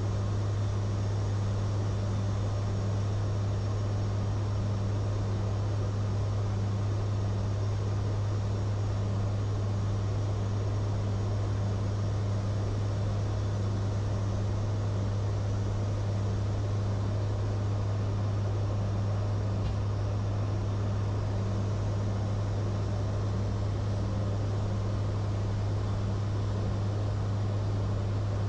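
Steady drone of a WC-130J Hercules's four turboprop engines and propellers, heard from inside the aircraft: a strong constant low hum with a fainter pulsing hum above it and a hiss of air.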